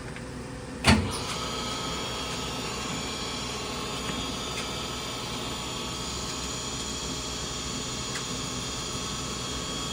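Metal lathe switched on with a sharp clunk about a second in, then its motor and spindle running steadily with a whine.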